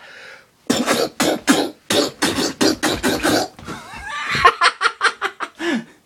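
A man's voice in a long run of short, rapid bursts without words, then a second run of sharper, higher bursts near the end.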